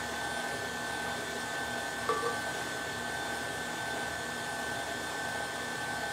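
Tilt-head stand mixer running steadily at medium-low speed, a smooth motor whir with a thin high whine, as it beats a thick tart filling.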